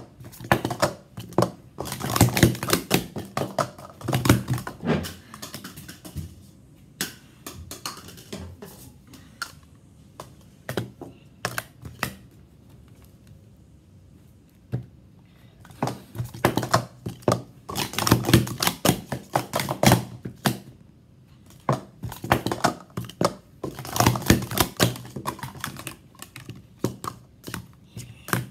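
Green plastic Speed Stacks sport-stacking cups being stacked and unstacked at speed on a stacking mat: runs of quick, light plastic clacking as the cups knock together and tap down. There is a quieter stretch with only scattered clicks in the middle.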